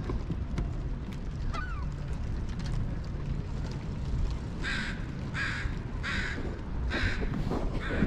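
A crow cawing: five harsh calls in a row at a steady pace, starting about halfway in, over a steady low rumble.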